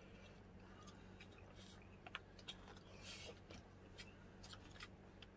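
Near silence over a faint steady hum, broken by small eating and tableware sounds: a few soft clicks and a brief crackle about three seconds in.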